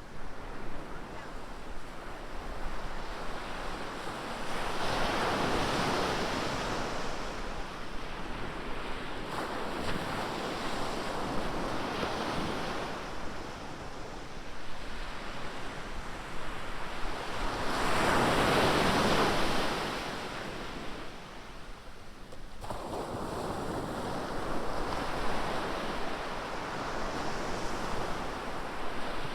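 Ocean surf: waves breaking and washing up the beach in slow swells, the loudest about two thirds of the way in, over a steady wash of water and some wind noise on the microphone.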